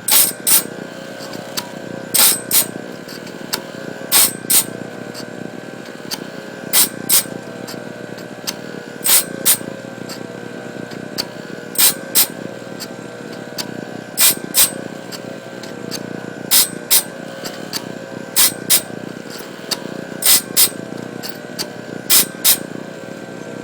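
Radial arm saw motor running steadily, driving a grinding stone that sharpens a sawmill bandsaw blade. Short, sharp grinding bursts come in pairs about every two and a half seconds as each tooth is indexed into the stone and ground.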